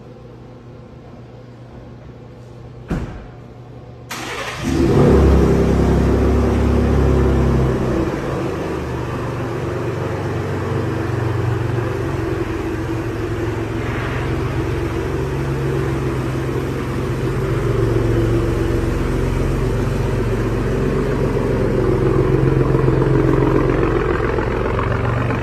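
Ford Raptor pickup's engine cranked and started after a single click, flaring up loudly as it catches, then settling into a steady idle with slight swells for the rest of the time.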